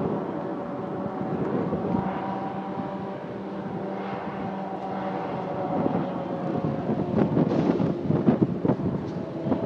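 Diesel locomotive engine running steadily with a low hum and higher whine. From about seven seconds in, wind buffets the microphone in gusts.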